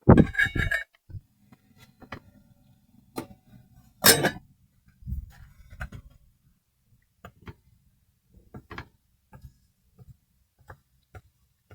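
A utensil stirring a simmering pan of tofu and sauce: a clatter at the start and another about four seconds in, then scattered light taps and scrapes against the pan.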